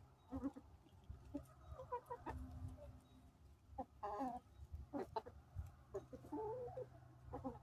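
Barred Plymouth Rock hens clucking while feeding on cracked corn: scattered short clucks, with a longer call about four seconds in.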